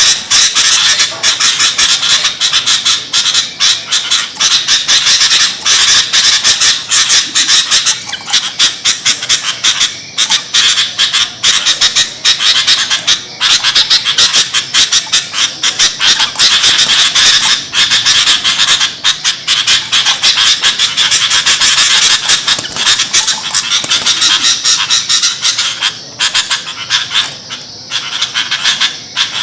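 Sooty-headed bulbuls (kutilang) calling noisily: a loud, unbroken chorus of rapid harsh chattering.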